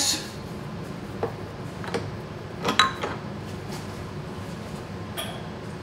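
A few scattered metal clinks and knocks as a machine vise is loosened and an aluminum fixture holding a rifle bolt is lifted out and set on the steel mill table. The loudest is a short ringing clink just under three seconds in, over a low steady hum.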